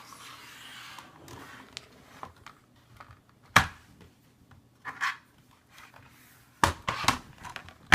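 Scattered sharp plastic clicks and taps, about five over several seconds, as the parts of a Logitech membrane keyboard are handled and fitted back together.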